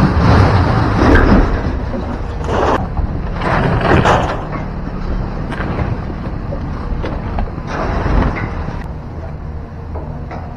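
An engine running steadily under several loud scraping crashes of scrap metal being unloaded, the loudest near the start, with more around three to four seconds in and about eight seconds in.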